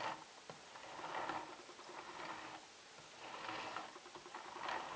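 Faint, soft rustling and light scraping in a few short swells as a metal model steam locomotive is handled and turned around on a towel.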